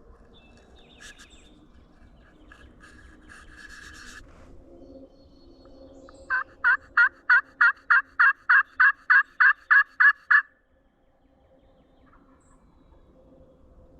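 A run of about thirteen turkey yelps, evenly spaced at about three a second and lasting some four seconds, loud and close.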